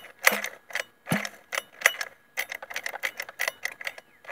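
Pull-starter of a Losi 5IVE-T's small two-stroke petrol engine being yanked over and over: rattling clicks from the recoil starter, with a dull thump on each of the first two pulls. The engine does not fire.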